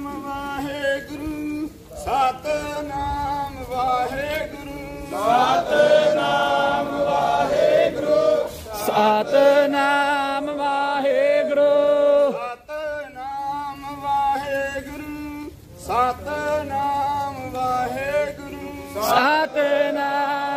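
Male voices chanting a Sikh devotional hymn together, in sung phrases with long held notes and short breaks between them.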